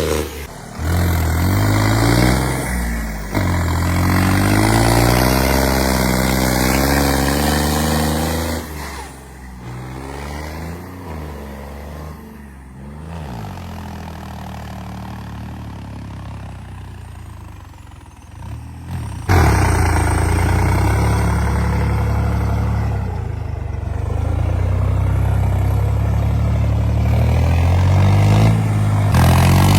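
New Holland 3630 tractor's diesel engine working hard, revving up and down as the tractor drags through deep mud. It drops to a quieter stretch in the middle and comes back loud about 19 seconds in.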